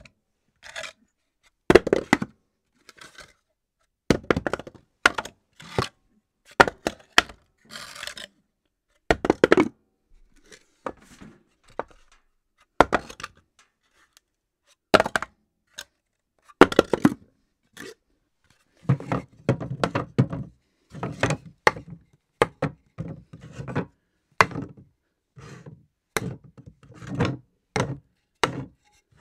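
A series of separate sound effects of objects falling and hitting a hard surface: sharp knocks, thuds and clattering impacts, some with a short ring after them. In the latter part the impacts come in closer clusters and sound lower and heavier.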